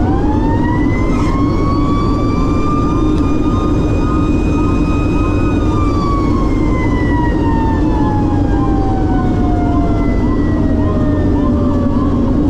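Fire engine siren winding up to a high steady pitch, holding it for several seconds, then slowly winding down. A fainter siren note repeats quickly underneath, over the steady drone of the truck's engine.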